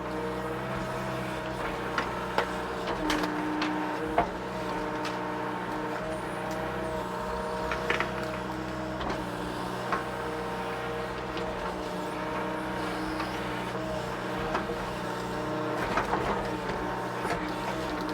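Mini excavator's diesel engine running steadily under working load, its tone shifting slightly now and then, with scattered short knocks and clunks as the machine digs at a large tree stump.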